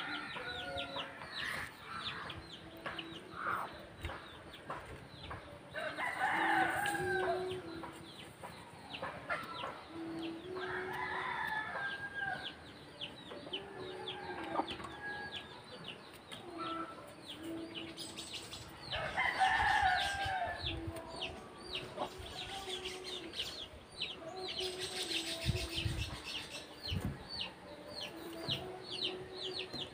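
Chickens clucking, with a rooster crowing three times and rapid high chirping near the end.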